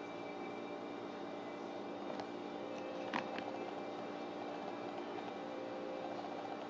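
Steady machine hum with hiss, as from a fan or household appliance running. A few short clicks fall around the middle, the sharpest about three seconds in.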